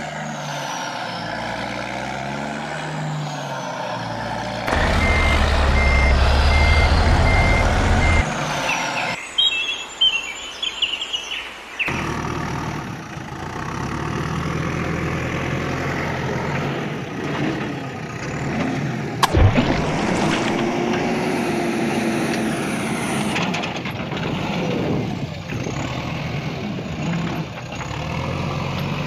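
Heavy truck engine sounds in a string of short pieces that change abruptly several times, with a reversing beeper sounding about twice a second over a low engine rumble for a few seconds early on, and one sharp click later.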